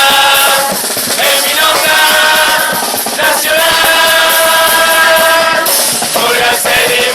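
Murga chorus singing in unison, holding long notes, over the murga's drums and cymbals.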